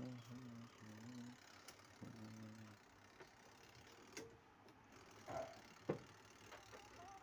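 Twin-tub washing machine's spin-dryer motor humming in short spells without turning, the stalled-motor hum of the fault. A few sharp clicks follow.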